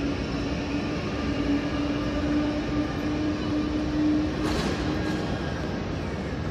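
A Berlin S-Bahn class 481/482 electric train standing at the platform with its doors open, giving off a steady hum with one clear tone that stops a little after five seconds in. A short hiss comes about four and a half seconds in.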